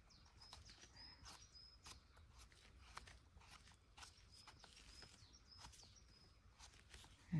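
Near silence: faint forest background with soft scattered clicks and a few brief high chirps.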